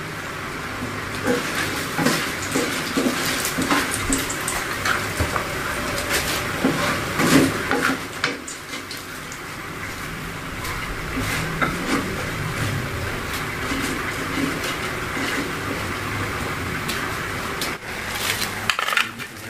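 Salted fish frying in hot oil in a wok: a steady sizzle with frequent crackling pops, and clinks of a wire spider strainer against the pan as the fish is lifted out.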